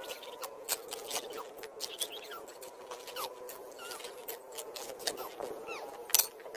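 Soil and stones scraping and clicking as a hole is dug out by hand and with a spade, in a dense run of small knocks with a sharper clack about six seconds in. Short high chirps sound now and then over a faint steady hum.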